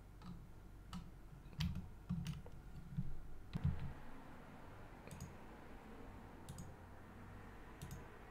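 Computer mouse and keyboard clicks: about nine short, sharp clicks spread unevenly, over a faint steady background hum.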